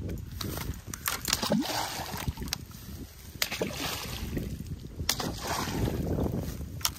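Water splashing and sloshing in a muddy pond, over a steady low rumble, with a few sharp knocks scattered through.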